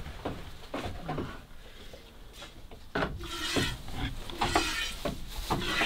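Goat being hand-milked: milk squirting into a pail in short hissing streams, about two a second, beginning about halfway through. Before that, a few knocks and scrapes on the wooden stall.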